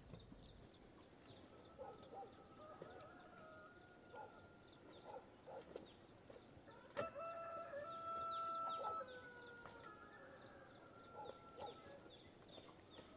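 A rooster crows once about seven seconds in, one long call lasting about two seconds, with scattered short clucks and chirps from chickens before it.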